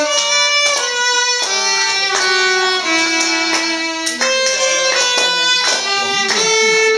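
Two violins playing a slow melody together, in bowed notes each held for about half a second to a second.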